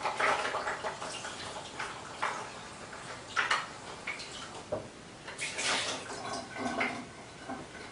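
Water from a kitchen tap splashing irregularly in a sink as raw chicken tenderloins are rinsed under it.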